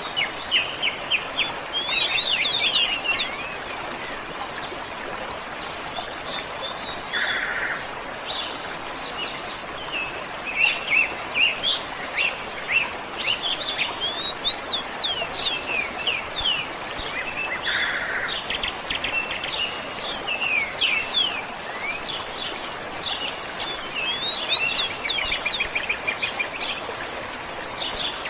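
Several birds chirping and singing in quick, overlapping phrases over the steady rush of a waterfall.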